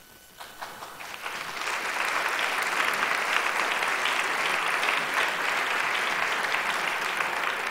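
Audience applauding. It starts with a few scattered claps and swells to full, steady applause within about two seconds.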